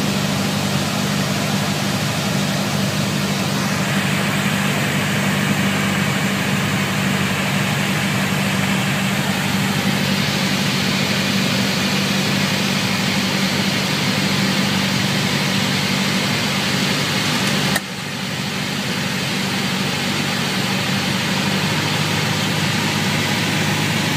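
Piper Warrior's four-cylinder Lycoming engine and propeller droning steadily in flight, heard inside the cabin with a hiss of airflow over it. The level drops suddenly about three-quarters of the way through and recovers over a couple of seconds.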